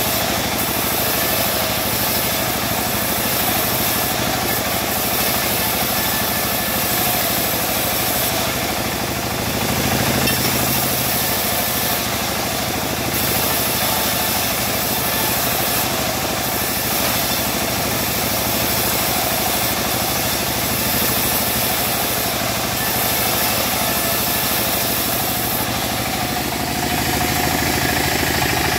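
Homemade bandsaw mill running steadily, its engine droning and the band blade slicing teak planks fed through it.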